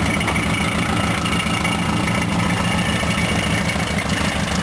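Isuzu Bellett GT Type R's DOHC inline-four idling steadily, with an odd noise from the engine that the owner questions.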